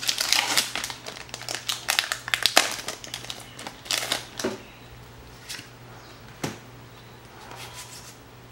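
Foil wrapper of a Pokémon Sun and Moon booster pack being torn open and crinkled by hand, dense crackling for about the first four and a half seconds. After that it goes quieter, with a few single soft clicks as the cards are handled.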